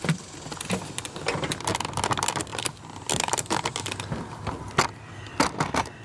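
Irregular plastic clicks and rattles of door-panel wiring connectors being pressed at their release tabs and pulled apart, a cluster of sharp clicks every fraction of a second.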